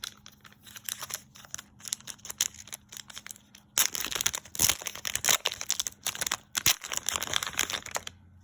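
Foil wrapper of a Pokémon booster pack crinkling as it is handled, then a denser, louder stretch of crinkling and tearing from about halfway as it is ripped open.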